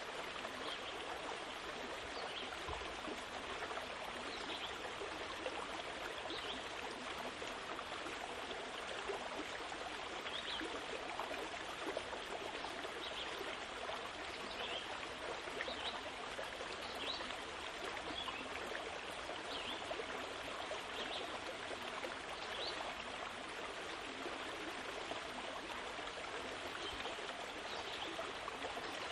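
A steady rushing noise like running water, with faint, short high chirps every second or two.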